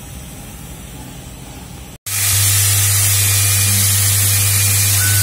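Automatic screw assembly machine running: a steady hiss with a strong low hum, the buzz of its vibratory bowl feeders. It is quieter for about two seconds, then much louder after a sudden cut.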